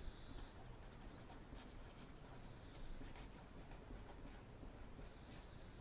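Faint scratching of a pen writing on paper, in short irregular strokes, over quiet room tone.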